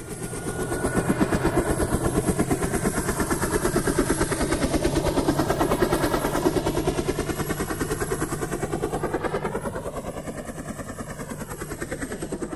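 Helicopter rotor blades chopping in a fast, steady pulse. Over the last few seconds the sound eases a little and takes on a sweeping, wavering whoosh.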